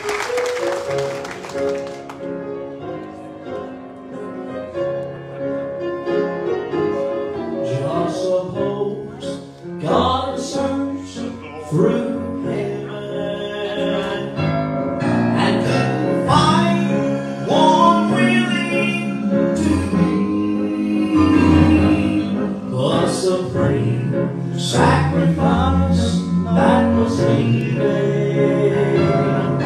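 Southern gospel vocal group of men singing with piano accompaniment: a few seconds of instrumental introduction, then the voices come in about eight seconds in.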